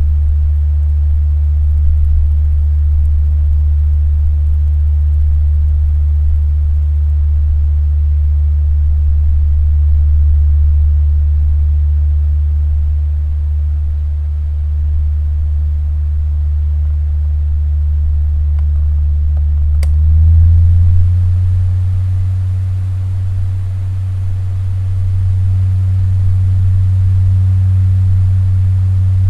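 Three-speed electric fan running with a steady low motor hum. About two-thirds of the way in there is a click and the hum steps up in pitch, as the fan switches to a faster speed.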